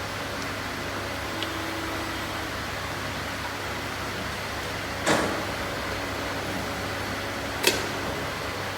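Steady mechanical hum, like a fan, with two sharp knocks about two and a half seconds apart, the first one trailing off more slowly.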